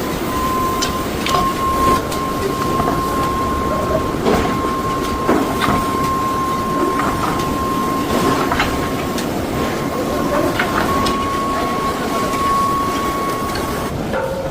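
Metal-working factory machinery running: a steady rumble with a high whine held throughout, and frequent metallic clanks and knocks.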